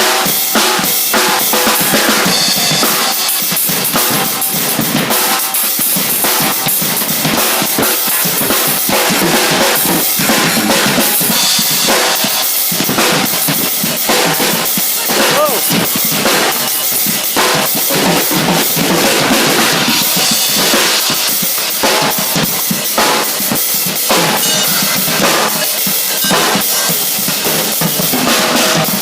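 Percussion group drumming without a break: dense, fast hand and stick drum hits in a steady Afro-Brazilian batuque rhythm.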